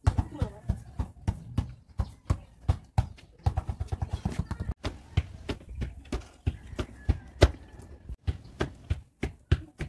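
A quick, irregular run of sharp knocks and taps, several a second, with no steady sound behind them.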